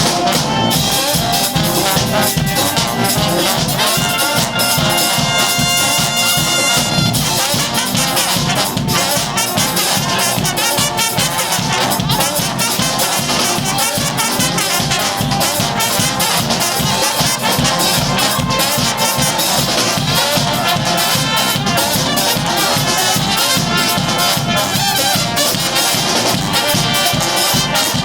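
Brass street band playing live: horns over drums that keep a steady beat, with long held horn notes about four to seven seconds in.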